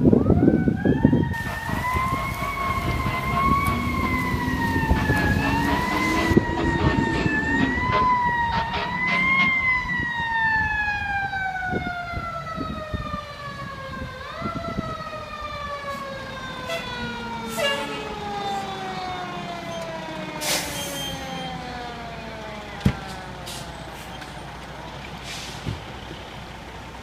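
Fire engine siren wailing, its pitch rising and falling for about ten seconds, then winding down in one long falling glide. A heavy low rumble comes at the start, and a few sharp knocks come in the second half.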